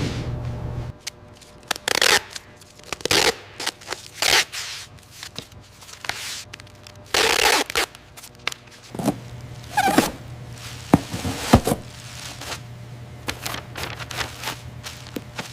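Irregular short scrapes and several sharp knocks over a low steady machine hum. The hum drops out about a second in and returns in the second half.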